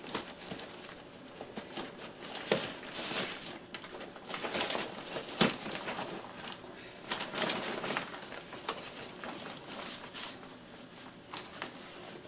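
Nylon tent fabric and its carry bag rustling and crinkling as the tent is stuffed back into the bag, with a few sharper clicks and knocks.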